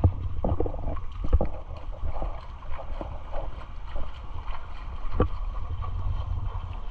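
Wind buffeting the microphone with a steady low rumble, over shallow seawater lapping at a rocky shore, with a few short soft knocks.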